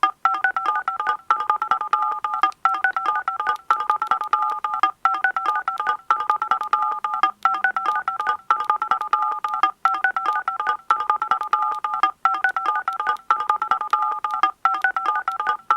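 Japanese Area Mail emergency alert tone sounding from a flip phone: a rapid warble between two high tones, repeating in bursts of about a second with short breaks. It signals an evacuation advisory received on the phone.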